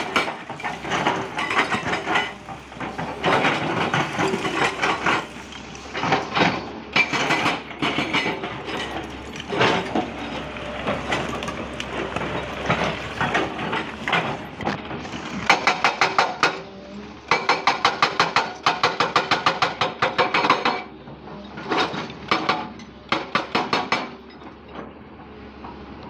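JCB backhoe loader at work: the diesel engine running under a stop-start run of rapid metallic knocking and clinking, several knocks a second in bursts, easing off near the end.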